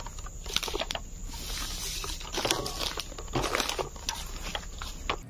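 Footsteps crunching and rustling through dry leaf litter and twigs, irregular crackles with each step.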